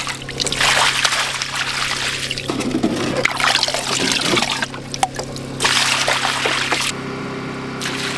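Water pouring and splashing onto the ground in three spells, over the steady hum of a running engine.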